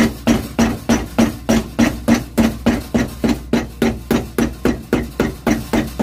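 Cobbler's hammer striking the heel of a leather shoe held on a last stand, in quick, evenly spaced blows of about three a second, each with a short dull ring, hammering down the newly fitted heel top lift.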